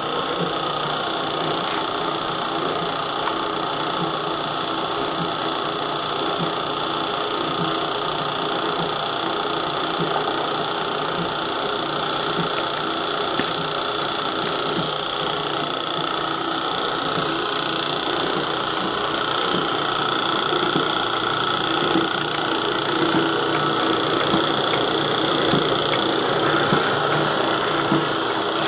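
Electric motor of a motorized meat grinder running, driving the grinder through its drive belt and pulleys: a steady whine with faint clicks.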